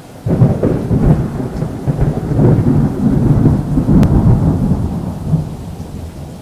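Thunderstorm sound effect: a loud thunderclap breaks in suddenly and rolls into a long low rumble over rain, fading toward the end.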